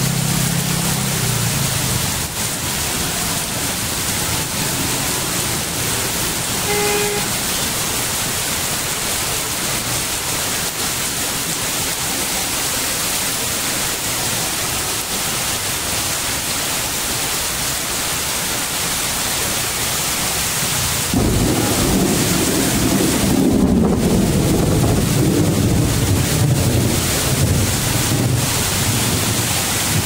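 Heavy rain pouring steadily onto a wet street, an even hiss of rain on pavement and puddles. About two-thirds of the way through, a low rumble swells in under the rain and carries on to the end.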